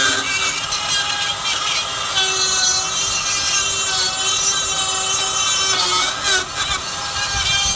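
Handheld battery power tool running under load, cutting into the stuck coupler to make holes for a pry point. Its whine runs steadily, wavering and dipping briefly about six seconds in as the tool bites.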